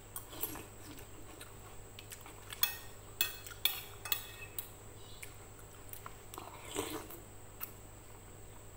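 Metal spoon and fork clinking and scraping against a plate in a series of sharp clinks, most of them in the first half, with mouth sounds of eating noodles and broth; a softer slurp-like sound comes near the end.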